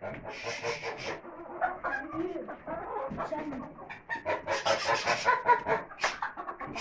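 Chickens clucking and squawking as they are chased about, with two louder stretches of calls, one near the start and one a little past the middle.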